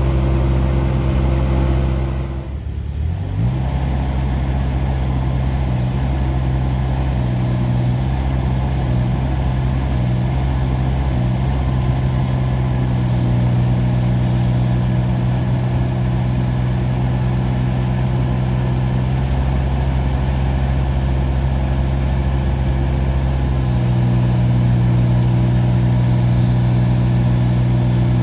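Kubota U17-3a mini excavator's three-cylinder diesel engine running steadily. About two to three seconds in, its note drops briefly and climbs back. The engine note shifts in steps a few more times later on as revs or load change.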